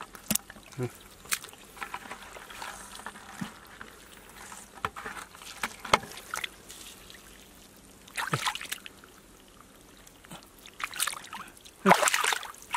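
Hands working in shallow muddy water and wet mud: scattered drips, trickles and small squelches, with a louder burst of splashing near the end as the hands dig into the mud.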